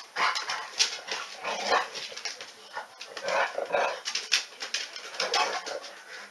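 Two dogs play-wrestling on a couch, with dog vocal noises coming in a string of short bursts.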